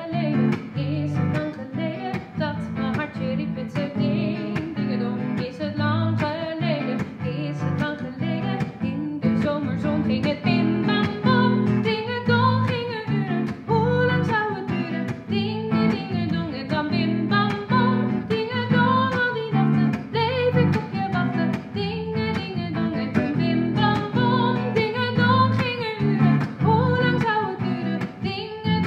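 A woman singing with an archtop electric guitar accompanying her in plucked chords. The singing grows more prominent about ten seconds in.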